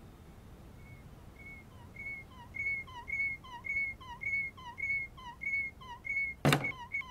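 Cartoon sound effect of a walking animated clamp: a whistle-like chirp repeating about every half-second, growing louder, then a sharp knock near the end.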